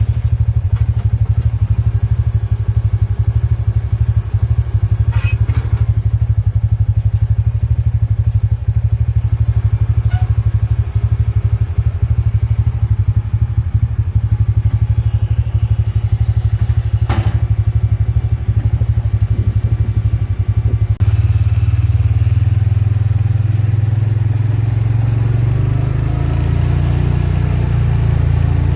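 Kubota M7040 tractor's diesel engine running steadily under load, with a few sharp clicks; the engine note changes abruptly a little over twenty seconds in.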